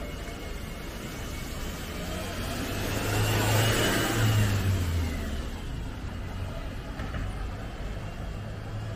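A motor vehicle driving past close by: its engine hum and a whine swell to a peak a few seconds in, then fade as it moves away.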